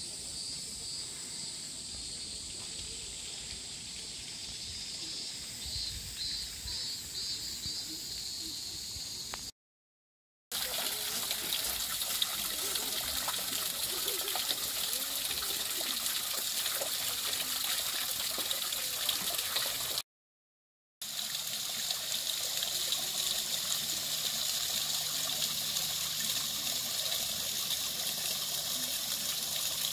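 Water trickling down a rock face and splashing into a small pond, a steady running-water sound. It cuts out briefly twice. Before the water, there is a quieter stretch of outdoor ambience with a steady high-pitched hiss.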